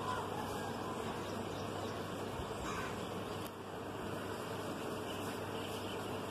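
Steady, even hiss of light rain and breeze outdoors, dipping briefly about three and a half seconds in.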